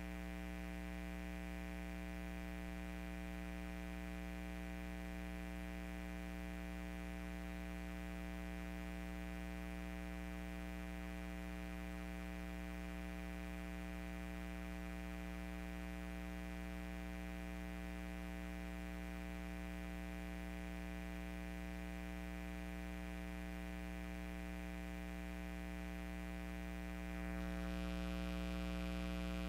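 Steady electrical hum, a stack of fixed tones that never waver, stepping up louder and brighter a couple of seconds before the end.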